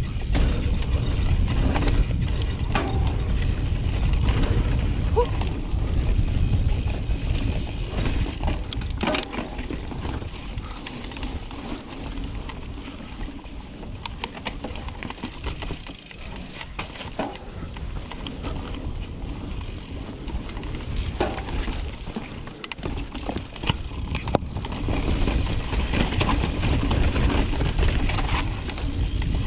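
2018 Intense Carbine 29er mountain bike ridden down a rocky dirt trail, picked up by a GoPro's microphone: steady rumble of wind and tyres with scattered knocks and rattles from the bike over rocks. The rumble is heaviest at the start and again near the end, easing in the middle.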